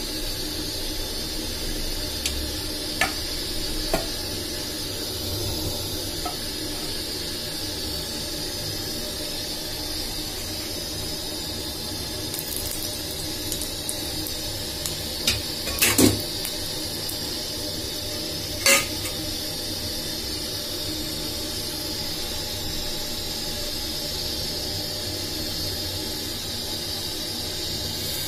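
Steady hiss from cooking oil heating in a frying pan on the stove, with a few light knocks of a pan or utensil; the loudest comes about sixteen seconds in.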